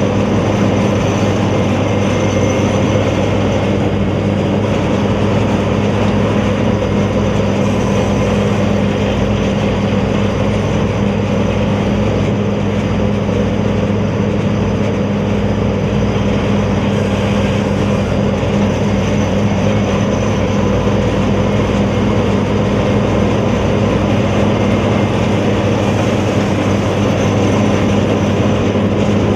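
Sakpattana corn combine harvester running steadily at working speed, a continuous loud machine drone with a deep even hum and a faint high whine above it.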